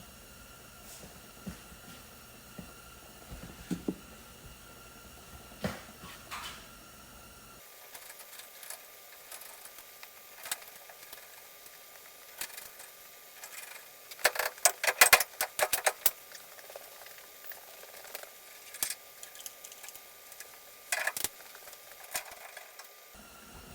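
Scattered clicks and knocks of a truck taillight assembly being handled and fitted into place, with a quick run of sharp clicks about two-thirds of the way through.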